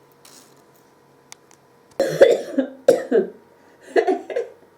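A woman coughing three times, about a second apart, starting about two seconds in. The coughs are forced on purpose to clear the chest after a steam inhalation, and they come only with effort.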